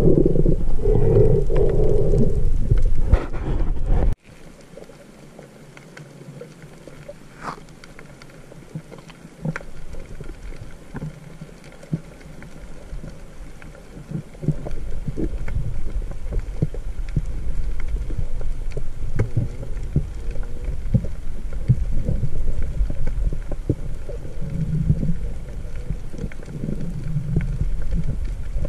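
Muffled underwater sound from a diving camera in its housing: a low rumble with scattered sharp clicks. It is cut off abruptly about four seconds in, then quieter, and builds up again about halfway through.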